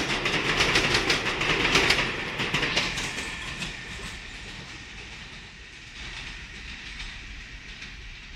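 New York City Subway 7 train of R188 cars running through the elevated station without stopping. Its wheels clatter rapidly over the rail joints for about two seconds, then the sound fades away as the last car pulls off down the line.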